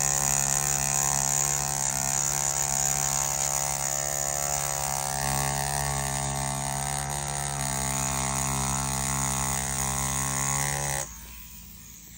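Mast Archer rotary tattoo pen machine running at 5 volts with a ballpoint pen cartridge fitted: a steady motor buzz that stops about eleven seconds in.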